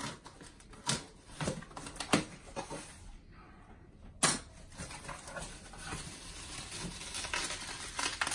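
Scissors snipping through packing tape and cardboard on a shipping box, with a loud snap about four seconds in as the box comes open. Then the cardboard flaps and the bubble wrap inside rustle and crinkle steadily.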